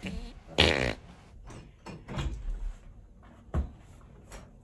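Footsteps and a few light knocks as someone walks across a room and handles a door, with one brief, louder pitched sound about half a second in.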